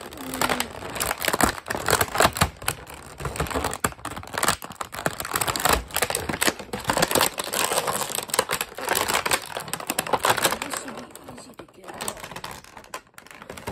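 Rigid clear plastic blister packaging being flexed and handled, crackling and clicking in a rapid, irregular run.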